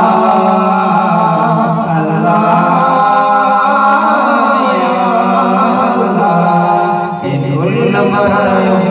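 Male voices singing a slow, chant-like song together through stage microphones, holding long notes with a wavering pitch; a new phrase starts about seven seconds in.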